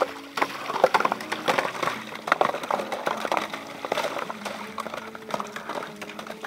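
Ice cylinders that froze inside a water pipe being forced out of its end, snapping and clinking against each other as they pile up, with water trickling. The cracks and clinks come thick for the first few seconds and thin out after.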